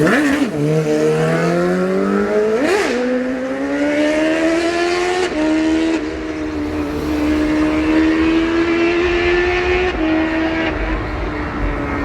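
Yamaha YZF-R6 inline-four sport bike engine accelerating hard. It snaps through two quick upshifts in the first three seconds, then pulls long and steady with its pitch slowly rising.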